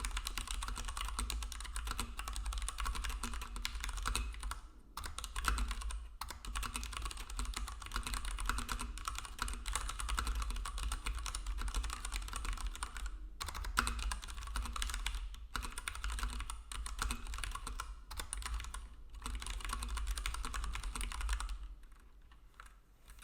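Fast, continuous typing on a Leopold FC660M BT compact mechanical keyboard with tactile brown switches. There are a few brief pauses, and the typing stops near the end.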